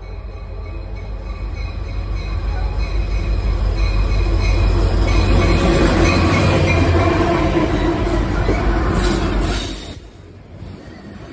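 Diesel freight locomotives, a CSX SD70MAC leading, passing close by. The engine rumble and wheel noise build up and peak as the units go past, then drop off suddenly about ten seconds in as the freight cars follow. A thin high squeal from the wheels runs through the loudest part.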